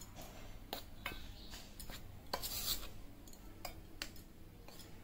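Steel spoon stirring dry gram flour in a stainless steel bowl: soft scraping and rubbing, with scattered clicks of the spoon against the bowl.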